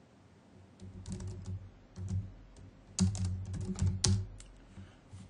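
Computer keyboard typing: quick keystrokes in three short runs, about one second in, about two seconds in, and a longer, louder run from three to four and a half seconds in.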